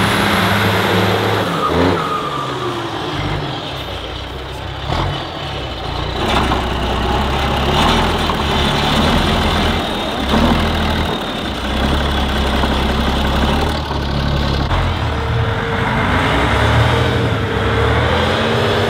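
Heavy off-road trial truck's diesel engine working hard, its revs rising and falling several times, with occasional knocks.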